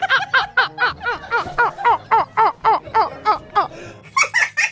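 A man laughing hard: a fast, even string of short 'ha' sounds, each rising and falling in pitch, about four or five a second. Near the end it gives way to a woman's laughter.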